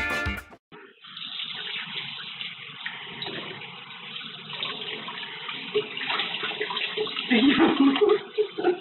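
Water running steadily, like a tap filling a bathtub, with faint voice-like sounds near the end.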